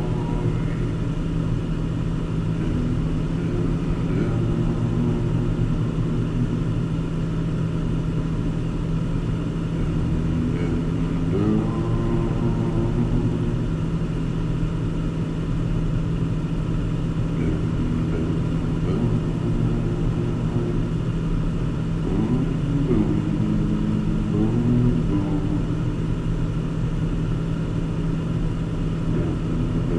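Car driving, heard from inside: a steady low engine and road drone, with the engine note rising several times as the car accelerates.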